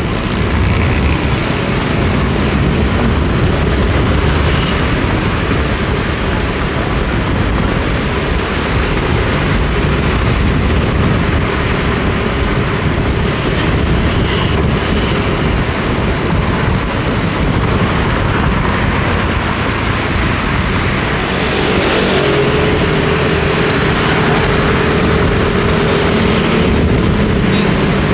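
Steady, loud road noise from a vehicle driving along a paved road: engine, tyre and wind rush together, with an engine hum that grows stronger about two-thirds of the way through.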